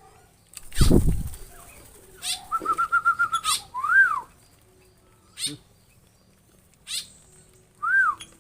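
Caged songbirds calling in an aviary: short harsh rasping calls repeated every second or two, a quick run of even chirps, and two rising-and-falling whistled notes. A loud flutter about a second in, like wings flapping.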